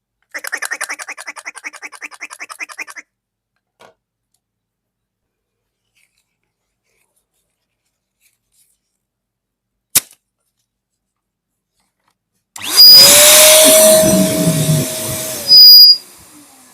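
Balloon sounds: a run of rapid rhythmic squeaks for about three seconds, one sharp pop near the middle, then a loud steady hiss with a held tone for about three seconds near the end.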